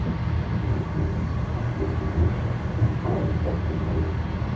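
Steady low rumble of a CR200J push-pull train running at speed, heard from inside the passenger carriage.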